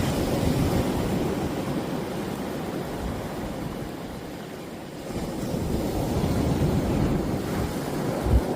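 Steady rushing of wind and sea water, heaviest in the low end, swelling twice, with a short thump near the end.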